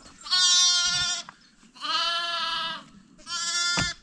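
A young lamb or kid-sized farm animal bleating three times: two loud, high calls of about a second each and a shorter third one. A single sharp knock lands near the end of the last bleat.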